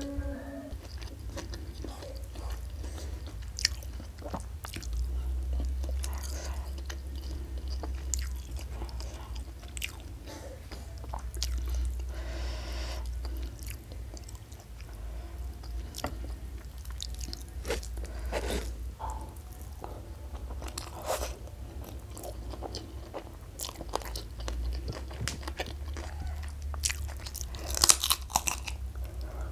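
Close-miked eating by hand: chewing, wet mouth sounds and crisp crunchy bites, with a loud cluster of crunches near the end.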